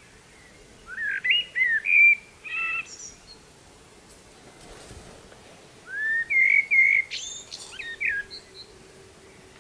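A songbird singing two phrases of varied whistled notes, each about two to three seconds long, separated by a pause of a few seconds; the second phrase ends in a few higher squeaky notes.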